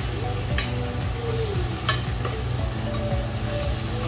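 Food sizzling in a hot frying pan while it is stirred, with a few sharp clicks of the utensil against the pan.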